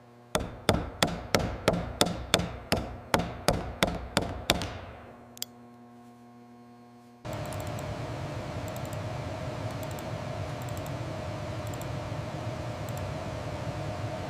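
A fast run of sharp knocks, about three a second, each ringing briefly, dying away after about four seconds. After a short lull, a steady machine hum starts suddenly.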